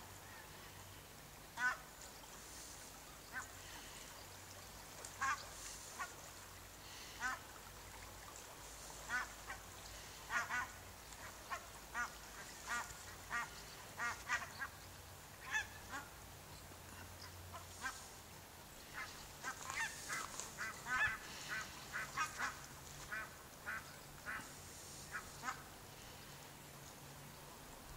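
Geese calling on the water: a long run of short honks, one after another, coming thickest in two spells, about ten to sixteen and nineteen to twenty-three seconds in.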